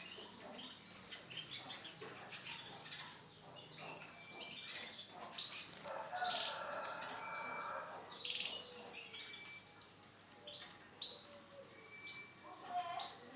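Isabel canary hen chirping: a run of short, high chirps and calls with a few brief whistled notes, a denser chattering stretch about halfway through, and two louder calls.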